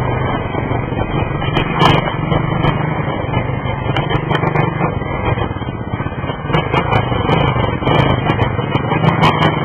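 A motor vehicle's engine running steadily, a loud continuous noise with a low hum and scattered faint clicks.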